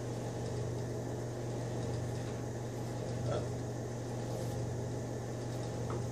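A steady low electrical hum from the kitchen background, with a couple of faint clicks about three and six seconds in as the knife and celery are handled on a plastic cutting board.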